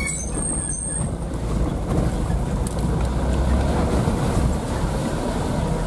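Isuzu Elf minibus driving over a rough, broken road, heard from inside the cabin: steady engine and road rumble with a few light knocks and rattles.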